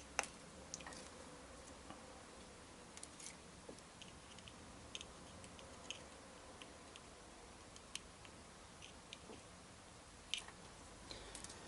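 Near silence broken by faint, irregular small clicks and taps, the sharpest just at the start: the handling of small parts and wires on a bench.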